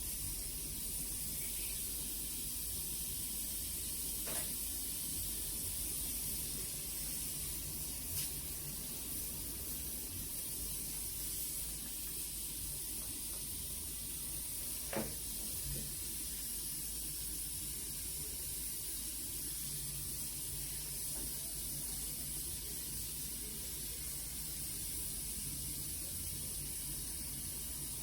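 Steady hiss of gas, with a few faint clicks.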